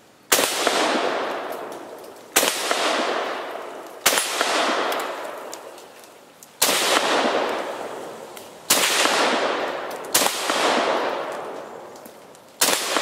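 Russian SKS semi-automatic rifle firing seven single shots of 7.62×39 full metal jacket ammunition, roughly two seconds apart, each shot followed by a long echo that slowly dies away.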